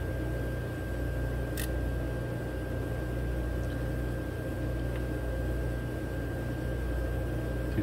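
Steady low mechanical hum with a thin steady high whine over it, and a single sharp click about one and a half seconds in.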